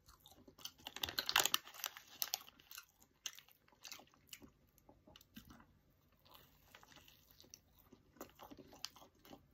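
Close-up biting and chewing of a toasted egg sandwich: crunchy crackling of the toasted bread, loudest about a second in, then quieter, sparser chewing sounds.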